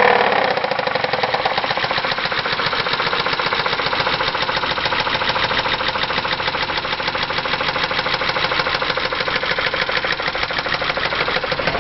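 Chrysler 2.7-litre V6 engine settling back to idle and running with a rapid, steady knock. This is the well-known 2.7 knock, which is put down to oil sludge from design flaws.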